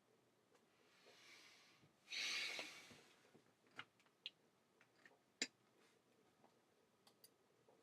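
A person breathes in and then exhales sharply through the nose close to the microphone, followed by a few faint, scattered clicks.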